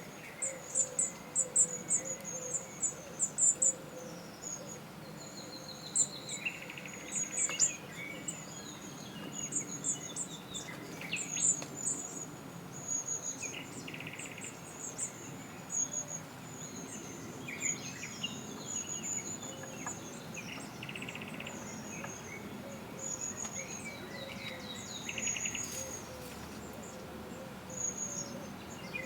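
Wild songbirds calling and singing: runs of high, thin chirps throughout, with short buzzy calls now and then.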